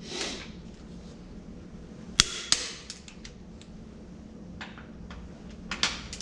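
A few sharp metallic clicks and knocks of hand tools being handled, the loudest about two seconds in, followed by a second one and then a small cluster near the end.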